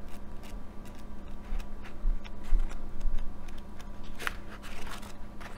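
Pages of a paperback book being turned and handled: scattered soft paper rustles and light ticks, one a little stronger about four seconds in, over a steady low hum.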